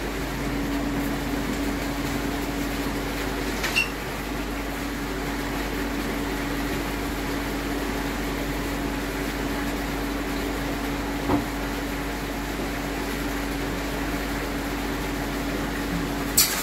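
Steady machine hum with one constant tone and a noise haze, from a running motor such as a pump or fan. A few brief clicks sound about four seconds in, around eleven seconds and near the end.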